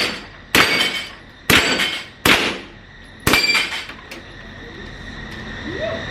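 Gunshots from an MP5, fired singly, four shots roughly a second apart, each followed by a short ringing decay.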